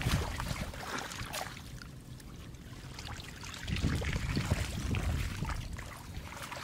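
Rubber boots wading and splashing through shallow floodwater, with water trickling. The splashing grows louder a little under four seconds in.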